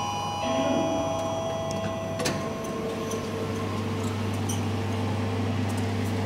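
Whining tones from a metro train's electric motors dying away over the first two seconds, over a steady low hum. A single sharp click comes about two seconds in.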